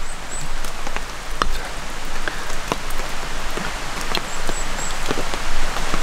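Steady rush of water with scattered sharp drip-like ticks and splashes.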